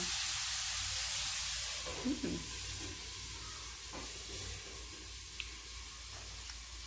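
A steady hiss, louder for the first two seconds and then a little quieter, with a few faint small clicks and mouth sounds as a spoonful of balut yolk is eaten.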